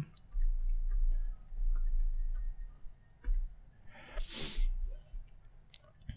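Computer keyboard keys clicking as a password is typed, over a low rumble in the first few seconds, then a short hiss about four seconds in and a mouse click near the end.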